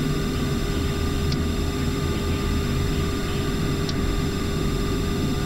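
Steady flight-deck background noise of a Boeing 747-400: an even air hiss with a constant hum of fixed tones, and two faint clicks about two and a half seconds apart.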